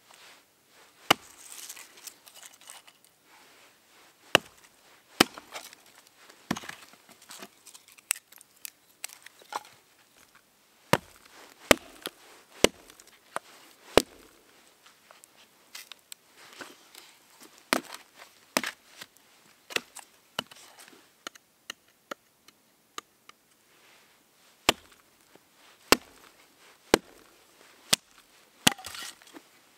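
A hatchet chopping into a small branch laid across a log, about twenty sharp strikes at uneven intervals with a pause of a few seconds past the middle, chips of wood splitting off.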